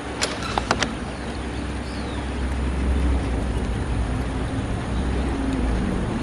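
Steady outdoor background noise: a low rumble under an even haze, with a few sharp clicks in the first second.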